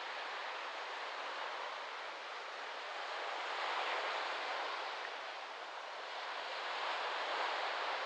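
Small waves washing in and out on a sandy tropical beach, a steady hiss that swells gently about halfway through and again near the end, with wind in the palm fronds.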